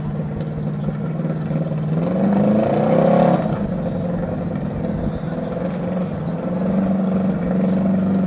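Racing lawn mower engine running steadily, revved up in a rising climb about two seconds in, peaking after about a second, then dropping back to a steady run.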